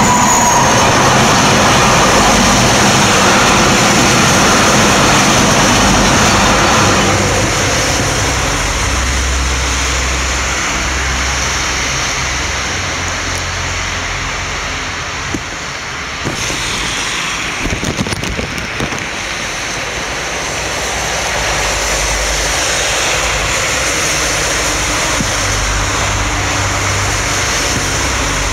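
Road traffic: motor vehicles, lorries among them, passing on a wet road, with a steady low engine rumble under tyre noise.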